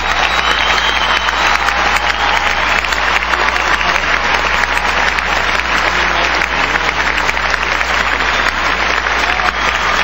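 Large arena crowd applauding steadily.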